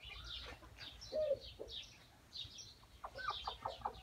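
Domestic hens clucking, with high short chirps throughout and a quick, even run of clucks about three seconds in.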